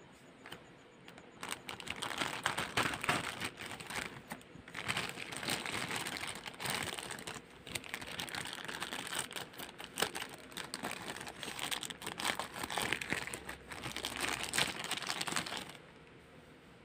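Thin clear plastic bag crinkling in irregular bursts as it is handled and pulled off a figure and its plastic display base, quieter for the first second and a half and again near the end.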